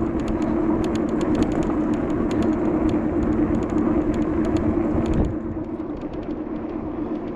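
Steady hum of vehicle traffic, with a low even drone and a wash of noise; it eases off a little about five seconds in.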